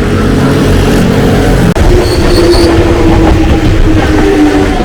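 Enoden (Enoshima Electric Railway) train running close by: a loud low rumble with a steady whine that sinks slightly in pitch over the last three seconds. The sound drops out for an instant about two seconds in.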